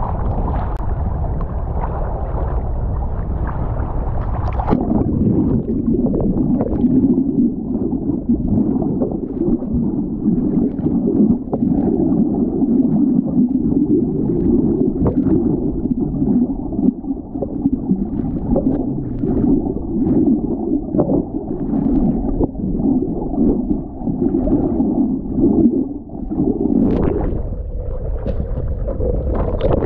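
Water and wind noise on the microphone. About five seconds in, the sound turns muffled and gurgling, with scattered bubbly pops, as the camera goes under the water.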